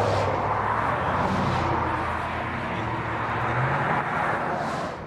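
Road traffic: a motor vehicle going past on the road, with engine and tyre noise. The sound drops away suddenly near the end.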